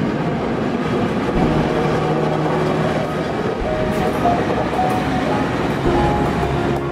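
A steam train running along the track, heard as a steady, dense rumble and clatter.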